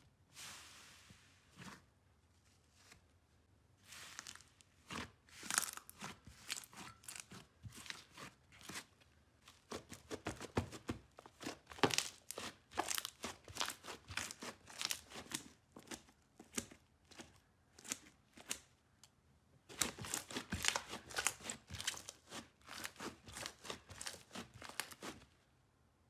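Fluffy blue slime crackling and popping as hands press, squeeze and pull it apart: dense runs of small sharp crackles that start a few seconds in and stop shortly before the end.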